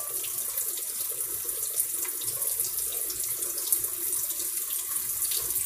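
Kitchen tap running steadily into the sink.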